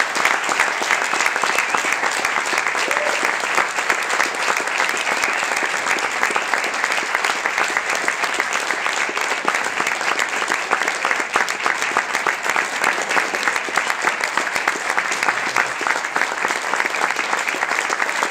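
Audience applauding steadily, a dense clapping from many hands.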